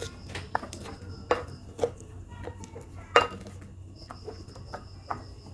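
A utensil knocking and scraping against a dish as roasted garlic cloves are crushed into a paste to release their oil. It gives about six sharp, uneven knocks, the loudest about three seconds in.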